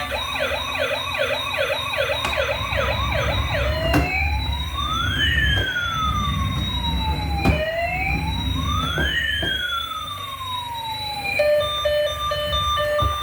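Electronic toy emergency-vehicle siren: a fast yelping sweep for about four seconds, then two slow rising-and-falling wails, switching near the end to a pulsing steady tone.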